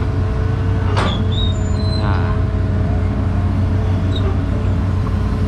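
Hydraulic excavator's diesel engine running steadily under working load, heard from inside the operator's cab, with a steady higher hum over a deep drone while the boom, arm and bucket are worked and the upper body swings. A sharp click sounds about a second in.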